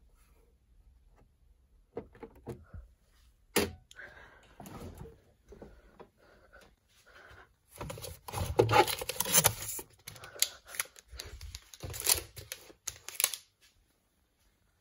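Plastic food packaging rustling and crinkling, with clicks and knocks, as food is taken out of a fridge and handled; a sharp click comes about three and a half seconds in, and the rustling is busiest a little past the middle.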